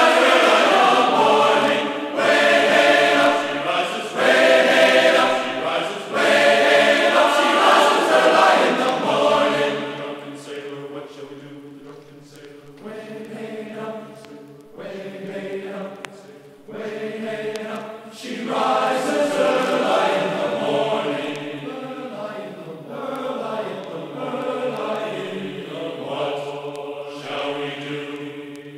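Choir-like vocal music: voices singing long sustained notes in a slow, chant-like style. It is loudest in the first third, drops back for several seconds in the middle, then swells again.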